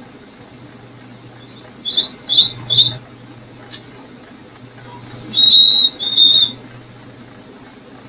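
Small-bird calls in two bursts: three or four quick, high chirps about two seconds in, then a few longer held high notes from about five to six and a half seconds in.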